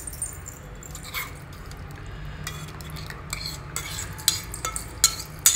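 Metal spoon scraping and clinking against a stainless steel mixer jar and bowl while thick curd and ground paste are spooned out, with a few sharper clinks near the end.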